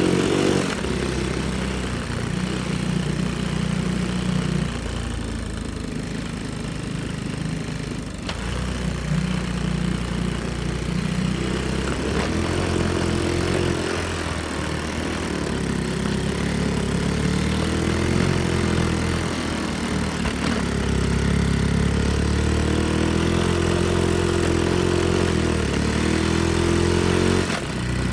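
Honda Monkey mini bike's small single-cylinder four-stroke engine running while ridden, its pitch rising and falling as the throttle is opened and eased off; it runs with freshly adjusted valves.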